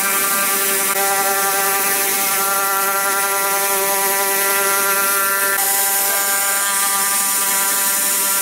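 CNC flatbed cutter's pneumatic oscillating knife cutting carpet: a steady mechanical buzz with a stack of even tones over a hiss. The buzz shifts slightly in pitch about five and a half seconds in.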